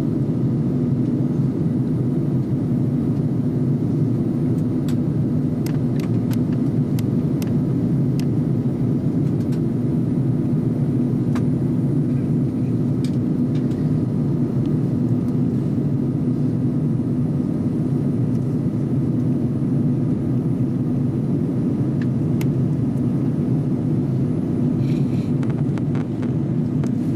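Steady roar of an airliner cabin in flight, jet engine and airflow noise heard from inside near the wing, with a low even hum and a few faint clicks.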